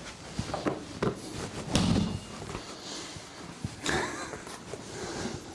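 Handling sounds on a chiropractic treatment table: a heavy thump about two seconds in, a sharper knock near four seconds, and lighter knocks and rustling between.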